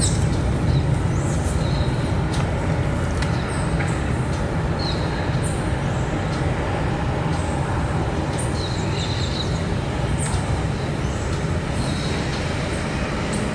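Steady low rumble of distant traffic, with a few faint, short high bird chirps over it.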